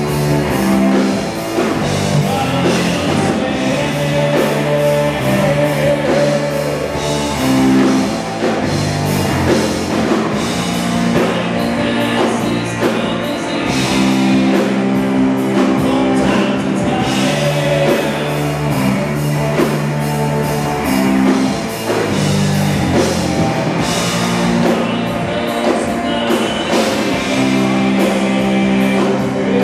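Live rock band playing loud, with electric guitar and a drum kit with cymbals.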